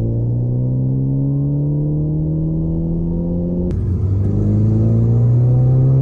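Ford Focus ST's turbocharged 2.0-litre EcoBoost four-cylinder, heard from inside the cabin, pulling at wide-open throttle on a Cobb Stage 3 tune with the stock turbo. The engine note climbs steadily, drops sharply with a click on an upshift a little under four seconds in, then climbs again through the next gear.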